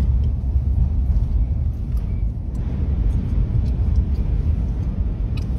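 Steady low rumble inside the cabin of a vehicle driving on a snowy highway: road and wind noise.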